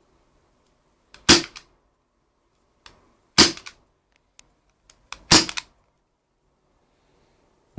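Gas airsoft pistol firing three sharp shots about two seconds apart, each followed by a short mechanical clatter, with faint clicks of handling between shots.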